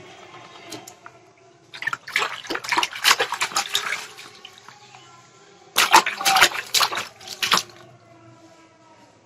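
A baby slaps and splashes the water in a plastic basin with her hands. The splashing comes in two bouts of quick strokes, about two seconds in and again about six seconds in.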